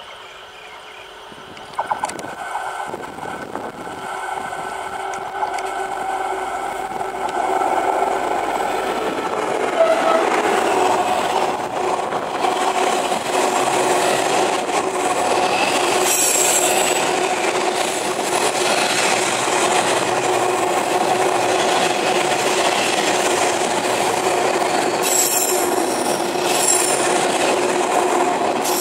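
A D20E diesel locomotive approaches and passes, its sound rising over the first ten seconds. A container freight train's wagons then roll by close and loud, with a steady hum of wheels on rail and two brief spells of rapid high clatter from the wheels.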